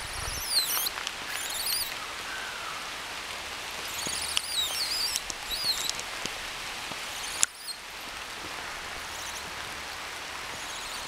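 Steady rain falling, an even hiss, with two bursts of high sweeping bird calls, about half a second in and about four seconds in.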